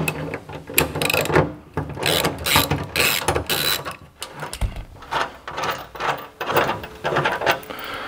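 Ratchet spanner clicking in short irregular runs as a bolt is backed off slightly to line up a seat-belt mounting plate.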